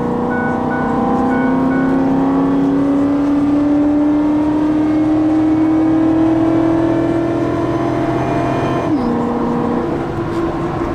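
Ford F-150's 5.4-litre V8, fitted with a Magnaflow exhaust, accelerating, heard from inside the cab. The engine note climbs steadily for about nine seconds, drops with an upshift, then starts climbing again.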